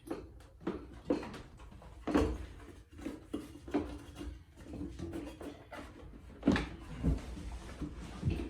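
Scattered knocks and clatter of tools and parts being handled, about a dozen sharp hits, loudest about two seconds in and again near six and a half seconds.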